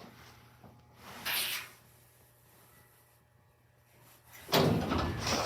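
Hydraulic elevator car's sliding doors opening on arrival, a loud rumbling slide starting about four and a half seconds in. Before it there is a low steady hum and a short hiss about a second in.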